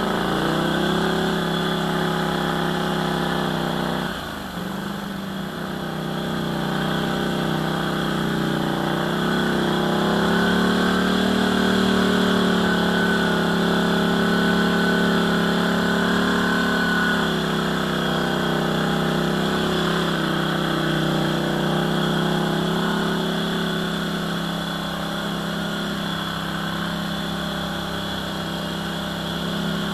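ATV engine running while riding a trail, its revs rising and falling with the throttle: a brief let-off about four seconds in, then held higher through the middle before easing back.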